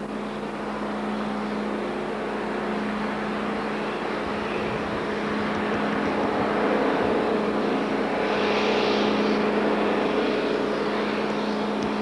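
Steady drone of a Voith tug's engines under a rushing noise of wind and sea, which swells louder about two-thirds of the way in.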